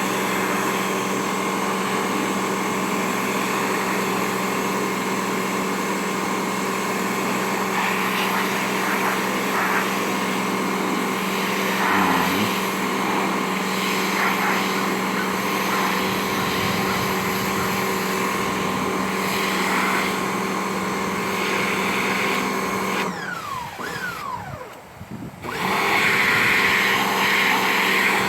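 Pressure washer running steadily, a fixed hum under a hiss of spray. About 23 seconds in the sound falls away for a couple of seconds, then comes back.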